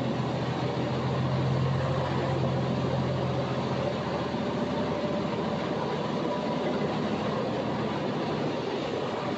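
Detroit DD15 inline-six diesel of a Freightliner Coronado SD122 truck running steadily under way, a low engine hum over even road noise, the hum strongest in the first few seconds.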